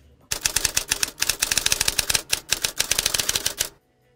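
Typewriter typing sound effect: a rapid, dense run of key clicks lasting about three and a half seconds, then stopping abruptly.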